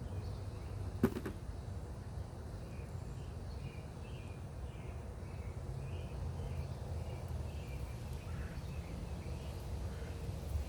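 A bird calling over and over in short chirps, about two a second, over a steady low rumble, with a single sharp click about a second in.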